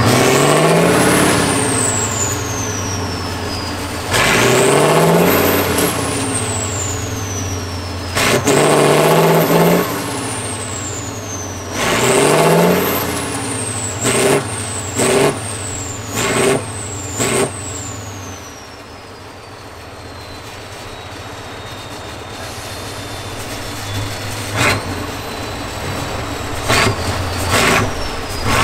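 Diesel engine of a truck-trial racing truck revved hard in four long surges about four seconds apart, each with a high whistle that rises and then falls away, then a run of short throttle blips, a quieter lull, and more blips near the end. The truck is straining to climb out of a steep ditch.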